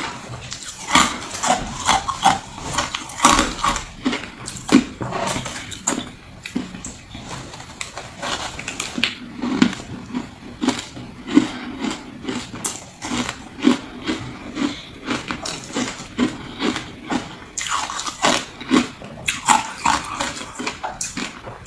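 Close-miked mouth chewing and crunching chunks of shaved ice, with irregular sharp crunches several times a second and softer, deeper chewing through the middle.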